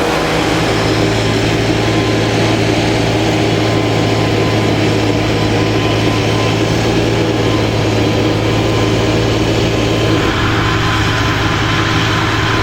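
Diesel tractor engine and maize-chopping machinery running steadily under load, with a constant deep hum. The mix shifts slightly about ten seconds in.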